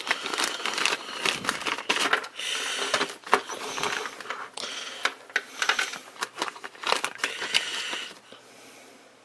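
Packaging being handled and opened by hand: irregular crinkling and crackling that stops about eight seconds in.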